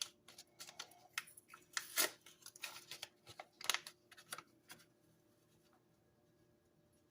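A packet of Au Jus gravy mix crinkling and rustling as it is opened and shaken out, a quick run of sharp crackles and rustles that stops about five seconds in.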